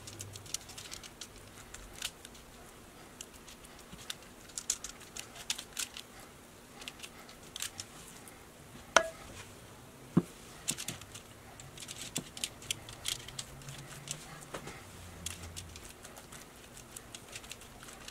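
Scattered small ticks and crinkles of a spoon and gloved fingers spreading spice paste on fish fillets over a foil-lined baking sheet, with a sharp clink about nine seconds in and another about a second later.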